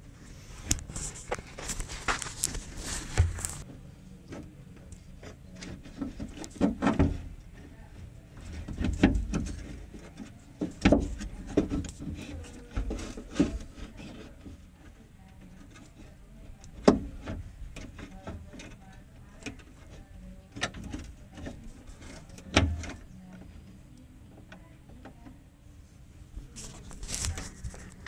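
Hands working inside a BMW E36 front door cavity: irregular clicks, knocks and rustles of wiring and metal parts being handled, with the loudest knocks about seven, eleven, seventeen and twenty-two and a half seconds in.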